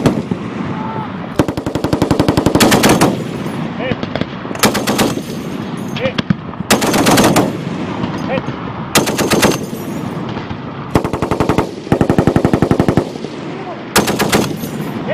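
M2 .50-calibre heavy machine guns firing repeated short bursts of automatic fire, about eight bursts of under a second each, some following close on one another, with a rolling echo after each.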